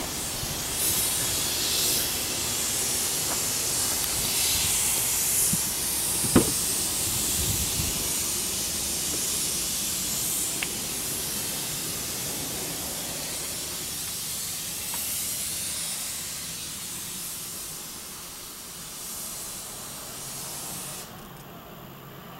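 Steady airy hiss, with a single thump about six seconds in. The hiss cuts off abruptly near the end.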